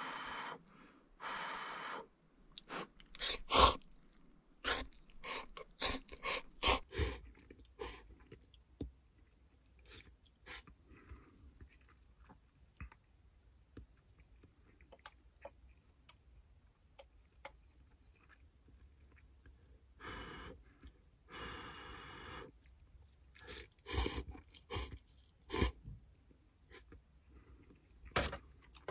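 A person eating noodles: two slurps at the start, then chewing with a run of sharp clicks from chopsticks against a stainless steel pot. About twenty seconds in come two more longer slurps.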